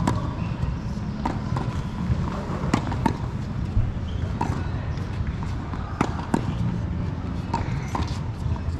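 Tennis balls being hit with rackets and bouncing on a hard court during a rally: a string of sharp pops a second or two apart, over a steady low background rumble.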